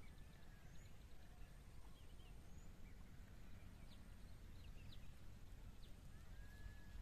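Quiet outdoor ambience: faint, scattered bird chirps and a few short whistles over a low steady rumble.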